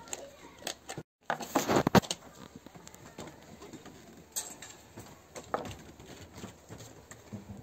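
Handling noises as a plastic bottle and a metal tray are picked up and set down on a wooden bench: clicks, knocks and plastic rustling, busiest between about one and two seconds in, after a brief break in the sound.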